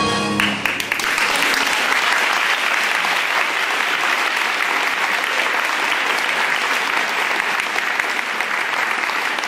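Audience applauding at the end of a school chorus song, whose last note cuts off about half a second in.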